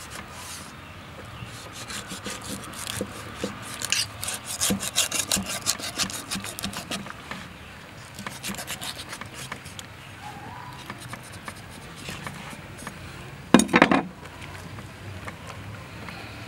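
Cleaver scraping the rough skin of a stingray on a wooden chopping block: quick rasping strokes, thickest and loudest a few seconds in, lighter later on. Near the end there is one sudden, much louder noise lasting under half a second.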